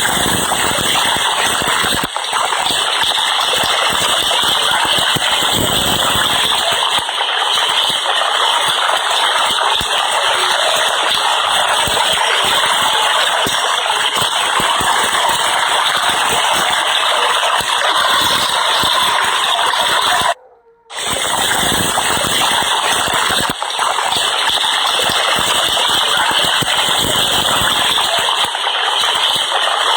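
Heavy rain pouring down in a steady, loud downpour, with a brief cut-out about two-thirds of the way through.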